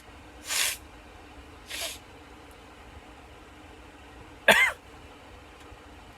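A man sniffs sharply through his nose twice, then about four and a half seconds in lets out one short, loud sneeze with a pitched cry in it. The sneeze is set off by cayenne pepper irritating his nose.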